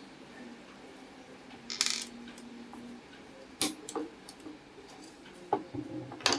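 Small metal parts clinking and clicking as they are handled: a brief scrape about two seconds in, then several sharp metallic clicks, the last near the end the loudest.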